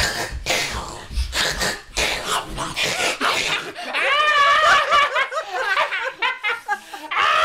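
Thumps and rustling as a child scrambles onto a bed and wrestles with a man, then a man and a child laughing, with a long high-pitched shriek starting near the end.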